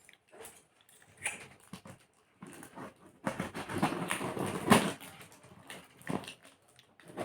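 Parcel packaging rustling and crinkling as it is handled, with scattered knocks; the rustling is densest from about three seconds in to about five.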